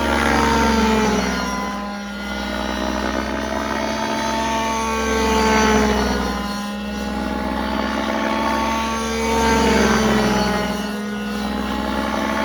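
Miniature Aircraft Spectra gas-powered RC helicopter in flight, its 27cc two-stroke engine with a small Zimmerman tuned pipe running steadily. The pitch and loudness rise and fall as it passes back and forth, loudest about a second in, near six seconds and near ten seconds.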